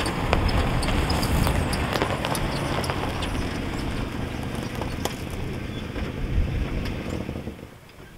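Truck driving over a rough dirt road, heard from inside the cab: a steady low engine and tyre rumble with frequent rattles and knocks. The noise drops away near the end.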